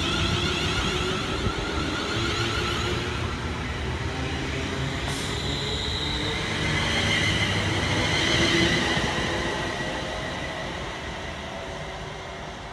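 Class 350 Siemens Desiro electric multiple unit running past close by, its traction motors whining in several high, shifting tones over the rumble of wheels on rail, with a sharp click about five seconds in. The sound peaks a little after halfway and then dies away.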